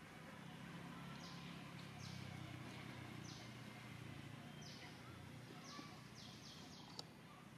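Faint forest ambience: short high chirps, falling in pitch and coming in runs of two or three, over a low steady hum that fades about five and a half seconds in, with a single sharp click near the end.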